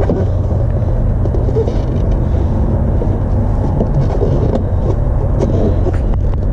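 A vehicle engine idling with a steady low rumble, with a few light clicks of wiring and trim being handled near the end.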